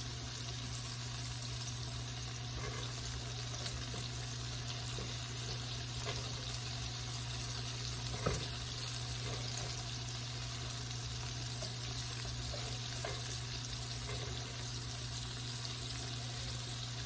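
Battered oyster mushroom pieces sizzling in hot oil in a skillet: a steady frying hiss with small crackles, over a constant low hum. One sharper knock comes about eight seconds in.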